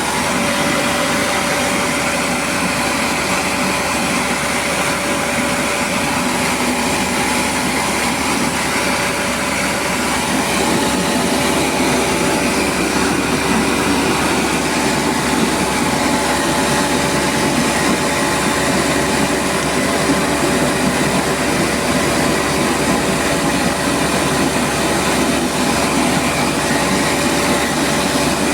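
Rice milling machine running steadily: a loud, even mechanical drone with several steady hum tones.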